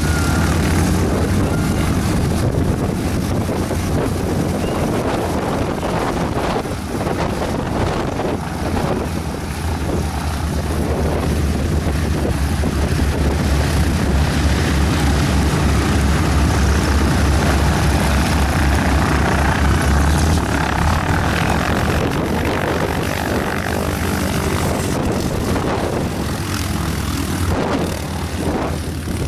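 North American AT-6D trainers' nine-cylinder Pratt & Whitney R-1340 radial engines running at taxi power, a steady, loud low rumble. It swells around the middle as one of the planes taxis close by, then eases off.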